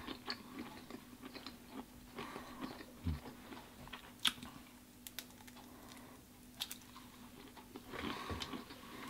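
Faint close-up biting and chewing of a grilled shrimp pulled from its shell, with a few sharp clicks and a low steady hum underneath.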